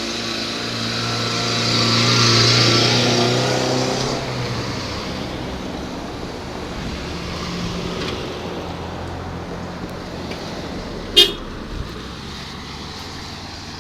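Cars passing close along the road. The loudest one goes by about two seconds in, and another passes more faintly later. A brief, sharp sound, the loudest moment, comes near the end.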